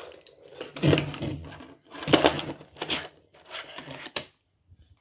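Small die-cast toy cars handled and set down on a plastic tray, giving a few irregular clattering knocks and a couple of sharp clicks near the end.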